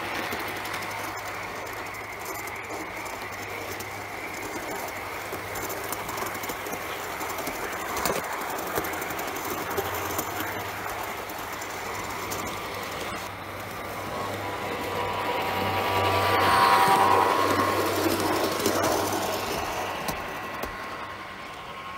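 1:32 scale model of the Burlington Pioneer Zephyr running along garden railway track: the wheels rolling on the rails over a steady low hum. It grows louder about three-quarters of the way through as the train passes close by.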